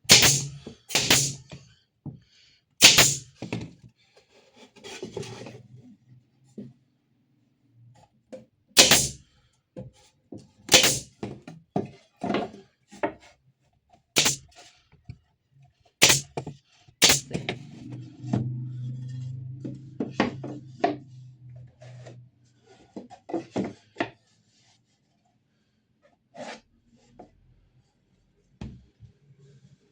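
Wooden boards and workpieces being handled and knocked on a workbench: irregular sharp thunks and knocks. A low hum runs for a few seconds past the middle.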